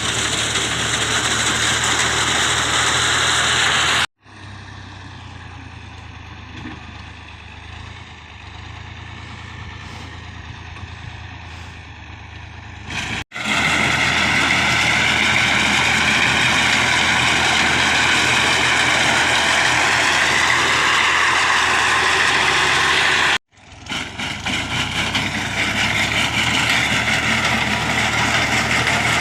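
Engine of a harvesting machine running steadily while cutting a jowar millet crop. It is heard in several cuts at different loudness: loud at first, much quieter for about nine seconds, loud again, then rising back up after a brief break.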